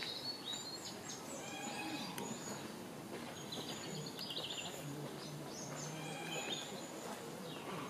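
Small birds chirping and singing, with many short high calls coming one after another.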